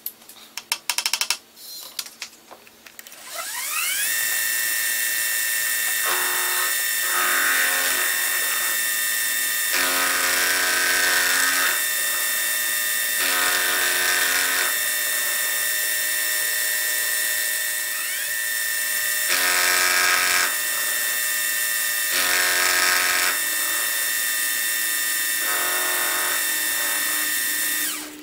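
Milling machine spindle starting after a few clicks and spinning up with a rising whine, then running with a steady high whine. An end mill side-cuts a small brass slide valve held in a vise, finishing it to a measured size, and the louder cutting noise comes and goes in passes of a second or two.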